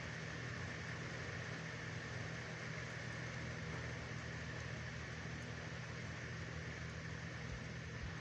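Steady rain hiss with a low, steady hum running underneath it.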